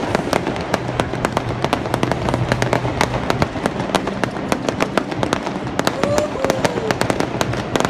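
Aerial fireworks display: a dense, continuous run of sharp cracks and pops from bursting shells, several a second.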